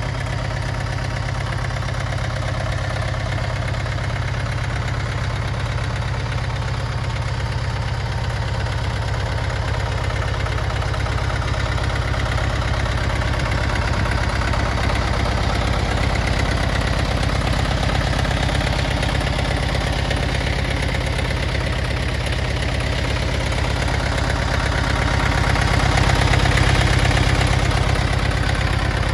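Yanmar FX285's four-cylinder diesel engine idling steadily, a little louder for a moment near the end.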